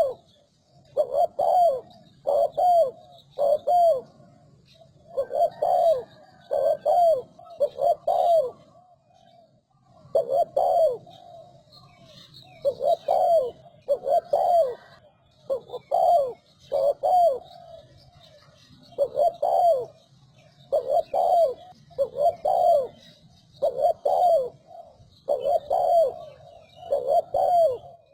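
Spotted dove cooing: short phrases of two to four low coos, repeated every two to three seconds.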